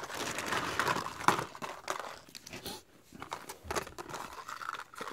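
Plastic poly mailer bag crinkling and rustling as hands reach inside and pull out the contents, busiest in the first half, followed by fainter clicks of plastic blister packs being handled.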